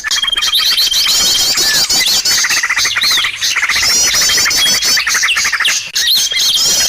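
A dense chorus of small birds chirping, trilling and swooping, with a long, even high whistle over the first second or so and a shorter one about halfway through. It is a bird-lure call recording, played for luring many kinds of birds.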